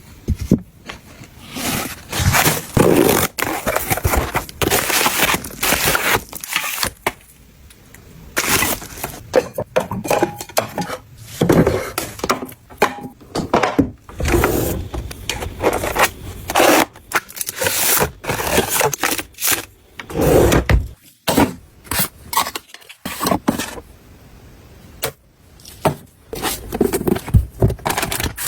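Household goods being handled and put away: an irregular run of taps, knocks and clicks of containers and packaging set down, with scraping and rustling between them.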